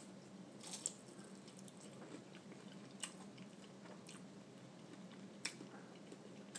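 Quiet chewing with a few soft, sharp mouth clicks, over a faint steady hum.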